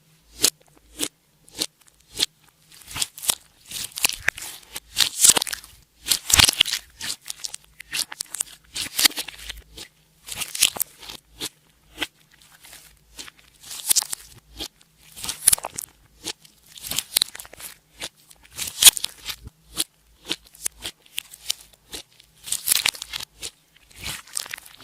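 Clear slime worked by hand, with bursts of crackling, popping clicks coming every second or two.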